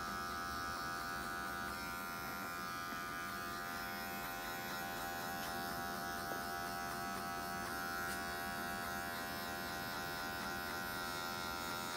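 Electric hair clipper running steadily while cutting short hair at the back of the neck, its motor holding an even pitch throughout.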